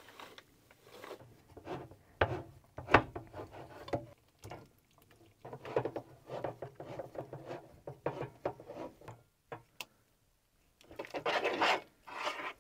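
Kitchen handling sounds: dry biscuit mix poured into a saucepan, a hand-crank can opener clicking and cutting around a tin can in the middle, and a spoon scraping as it stirs the mix in the pan near the end.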